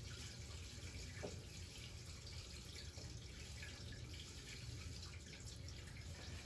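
Faint taps and squeaks of a dry-erase marker writing on a whiteboard, over a low steady room hum.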